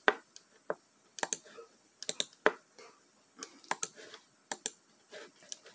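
Quiet, irregular clicking and tapping of computer keys, a few clicks a second with short gaps between.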